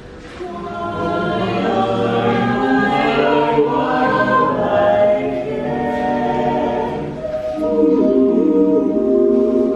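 A cappella vocal ensemble singing a song in several-part harmony, unaccompanied, ending on long held chords.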